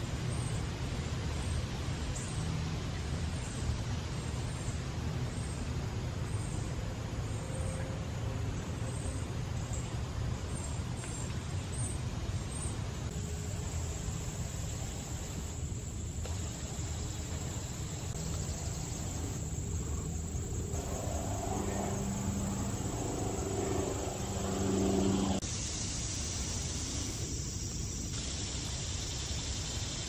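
Steady low rumble of motor traffic, with an engine hum growing louder from about two-thirds of the way in and cutting off just after.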